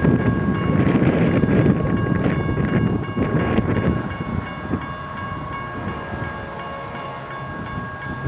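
GS Type 1 electronic crossing bells ringing steadily as the crossing gates come down. Underneath is a loud low rushing rumble that eases off about halfway through.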